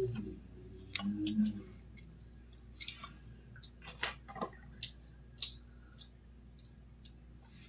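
Scattered small, sharp clicks and ticks of a lipstick being handled and applied to the lips.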